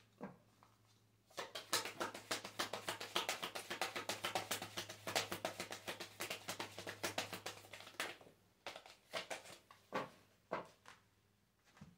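A deck of oracle cards being shuffled by hand: a rapid, dense patter of card slaps for about six seconds, then a few separate slaps as the shuffling slows and stops.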